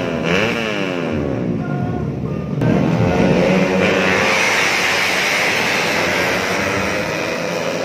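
Several 125cc four-stroke underbone race motorcycles revving on the start line, throttles blipped up and down. About two and a half seconds in they launch together, engines rising under hard acceleration into a loud, dense pack sound.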